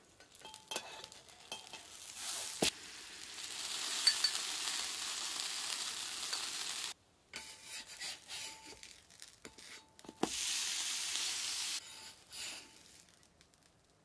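Worcestershire-sauce-coated pankatsu (bread cutlet) sizzling on a hot iron griddle while metal spatulas turn and lift it, scraping and clicking on the plate. The sizzle comes in two stretches, the first cutting off suddenly about seven seconds in, the second shorter and near the end.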